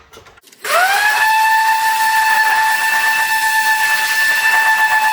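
Electric orbital sander fitted with 40-grit paper starting up. Its motor whine rises quickly in pitch, then holds a loud, steady high whine over a hiss.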